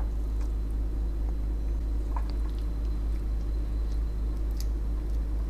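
Soft, sticky radish cake mixture dropped from a bowl into a lightly oiled nonstick frying pan and pressed flat with a silicone spatula: soft squishes and a few scattered light clicks over a steady low hum.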